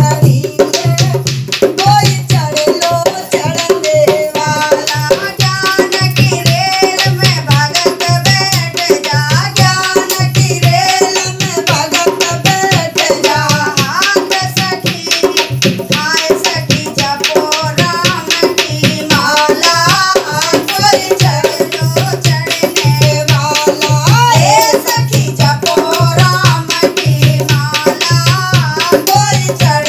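Women singing a Hindi devotional bhajan to a dholak beaten by hand. A fast, even clicking beat rides on top of the low drum strokes without a break.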